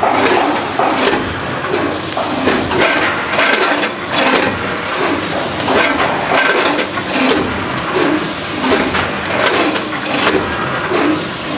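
Multihead weigher running: stainless steel hopper gates clatter open and shut about once a second as batches of puffed snack pieces drop through the steel discharge chute.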